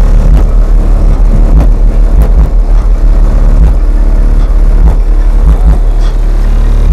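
Car-audio bass demo: very loud low bass notes from a no-wall subwoofer system in a full-size SUV, heard from outside the vehicle, with many short rattles over them and the recording pushed close to its limit.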